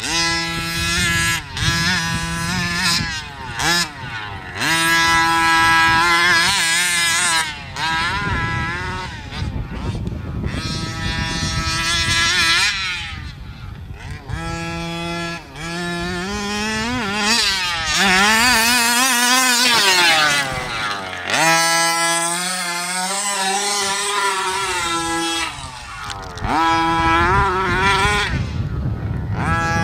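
The small two-stroke gasoline engine of a 1/5-scale HPI Baja 5B RC buggy, revving up and down over and over as it is driven hard around a dirt track. The revs climb high about two-thirds of the way through.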